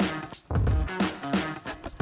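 Music with a steady beat, bass and plucked notes.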